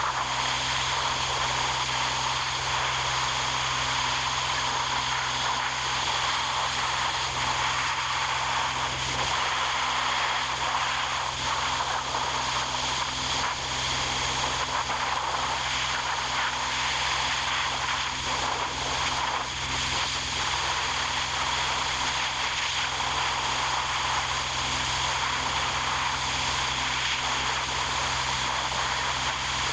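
A machine running continuously at a steady, unchanging level: an even hissing noise over a constant low hum.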